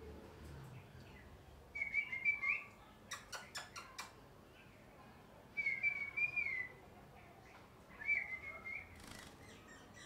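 Indian ringneck parakeet giving three short warbling whistled calls, with a quick run of sharp clicks between the first and second.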